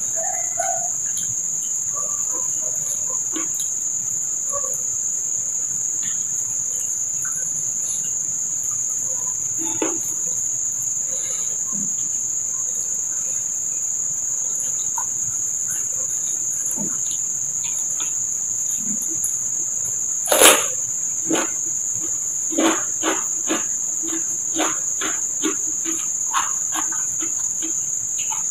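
Steady high-pitched trilling of insects throughout. About twenty seconds in comes a loud crunch, then a run of crisp crunching bites as raw cucumber is chewed.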